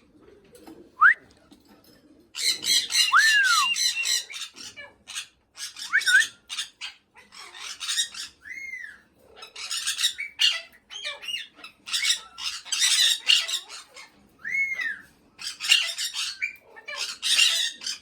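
Pet parrots calling: repeated harsh squawks in short bursts, broken by a few clear whistled notes that rise or arch and fall.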